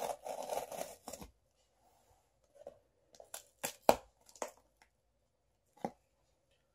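Packing tape being torn off a cardboard shipping box for about a second, followed by a few separate short knocks and taps as the box is handled.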